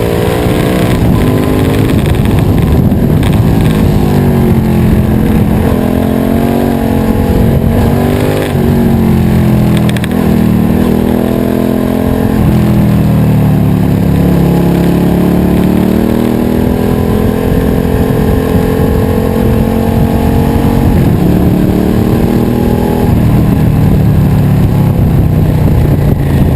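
Suzuki SV650 V-twin running through a Scorpion aftermarket exhaust while being ridden: the revs climb and drop back several times as it accelerates through the gears, with a longer stretch of falling revs in the middle before it pulls up again.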